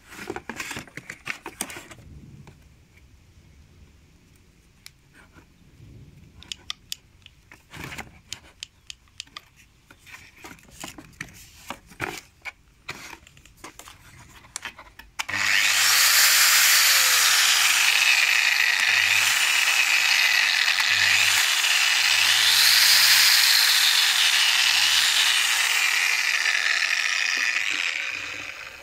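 Metabo WEA 19-180 Quick RT 1,900 W angle grinder switched on about halfway through, spinning free with no disc fitted: a loud, steady high whine with a slight waver in pitch, which winds down just before the end. Before that, scattered clicks and knocks of the tool being handled.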